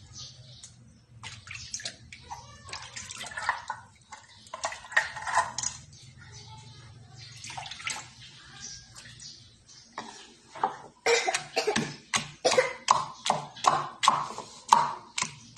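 Oregano leaves being pounded with a pestle to crush out their juice. The strikes come quick and regular, about three a second, starting about eleven seconds in, after lighter irregular clatter.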